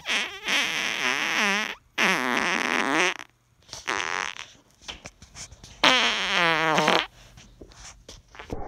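Human flatulence: a series of loud farts, three drawn-out ones with a pitch that wavers up and down and a shorter one between them. This is gas after eating too much dairy, from lactose intolerance.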